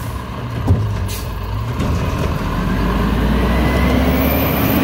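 Diesel engine of a WhiteGMC Amrep automated side-loader garbage truck running as the truck pulls forward, its note rising over the last couple of seconds. There is a knock, then a short hiss of air about a second in.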